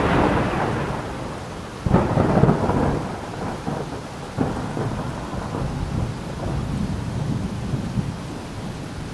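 A rushing noise with a low rumble, swelling suddenly about two seconds in and again about four and a half seconds in, each swell fading off.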